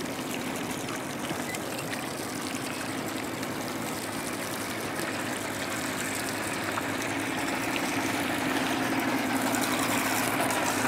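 Outboard motor running steadily under a rush of water along the boat, growing slightly louder toward the end.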